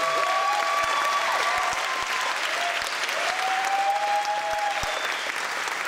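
Theatre audience applauding steadily, with several drawn-out cheers held over the clapping.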